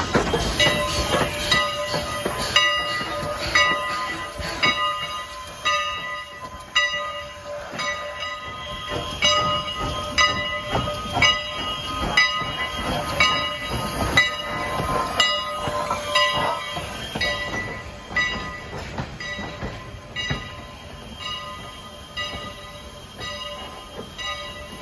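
Steam locomotive bell ringing steadily, about one and a half strokes a second, each stroke ringing on with several clear tones; it grows fainter over the last several seconds.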